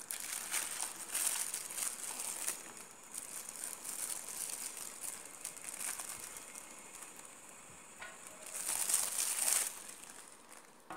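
Clear plastic packaging crinkling and rustling as a small speaker is unwrapped from it by hand, with a louder burst of crinkling about nine seconds in.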